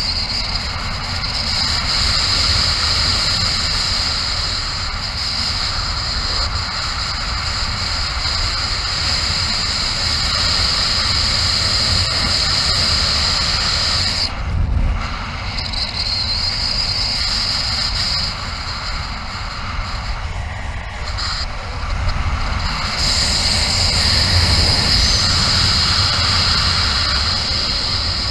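Steady rush of air on the microphone in a fast glide under a Nevures Rafale 13 wing with the trims fully released, with low buffeting throughout. A high hiss drops out briefly about halfway through and again for a couple of seconds about three-quarters of the way in.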